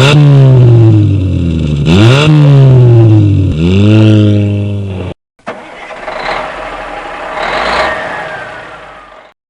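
A motor-vehicle engine revs three times, each rev climbing quickly and then dying away slowly. After a short break comes a different, noisier vehicle sound that swells twice, with a falling whine near the end.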